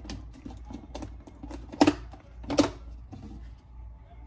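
Light clicks and knocks of pantry packages and containers being handled, with two louder knocks near the middle.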